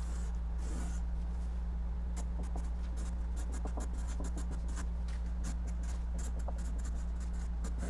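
Marker writing on sheets of manila paper taped to a wall: many quick, short scratching strokes as letters and boxes are drawn. A steady low hum runs underneath.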